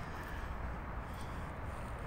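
Steady low rumble of outdoor background noise on a phone microphone, with no barking and no clear event.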